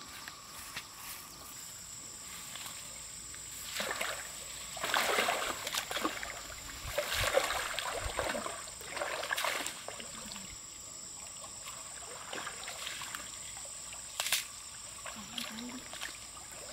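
Water splashing and sloshing in several irregular bursts, loudest from about four to ten seconds in, as fish and nets are handled in pond water, over a steady high insect buzz. A single sharp tap sounds about fourteen seconds in.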